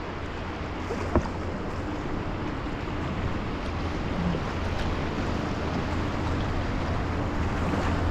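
Rushing river whitewater from a rapid: a steady, noisy rush that grows slightly louder, with one sharp knock about a second in.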